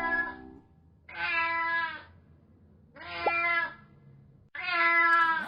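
Domestic cat meowing three times, each meow under a second long and about one to two seconds apart.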